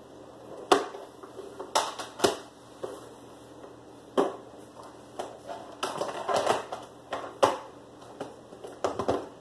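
A VHS cassette and its plastic clamshell case handled on a countertop: a string of sharp hard-plastic clicks and knocks, irregularly spaced, with a busier patch of clatter a little after the middle.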